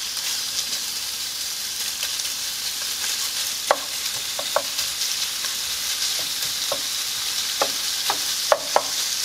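Chopped bacon sizzling in a skillet over medium heat, rendering its fat, while a wooden spatula stirs and turns the pieces. A steady hiss runs throughout, with a few sharp clicks from about three and a half seconds in.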